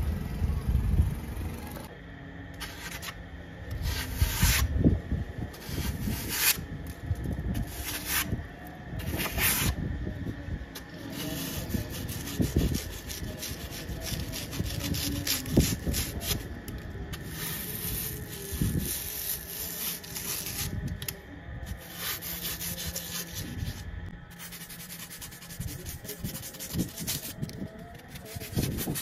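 Hand sanding or rubbing on a hatchet, a run of irregular strokes of uneven length with brief breaks.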